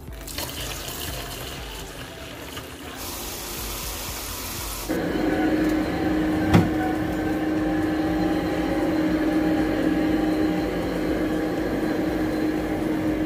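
Water running into a plastic bucket. About five seconds in, this gives way to the steady hum of a compact walk-behind carpet-shampooing machine running, with one sharp click shortly after it starts.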